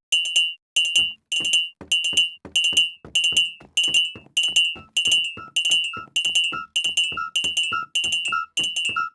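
Home smoke alarms and fire alarm devices sounding together: a high-pitched electronic beep repeating steadily, about one and a half to two times a second. About five seconds in, a second, lower-pitched beep joins each pulse.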